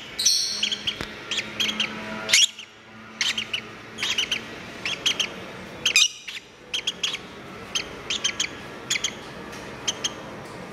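Lovebird chicks' begging calls while being fed: short, high chirps, often in quick pairs, repeated every half second or so with a couple of brief pauses.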